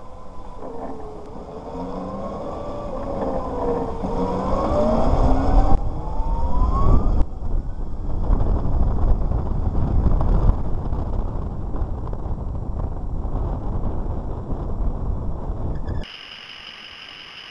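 48-volt electric motorcycle's motor and chain drive whining, the pitch wavering and then climbing steadily as it accelerates, before giving way about seven seconds in to a steady rush of wind and road noise. The sound cuts off abruptly near the end to a quieter steady hum.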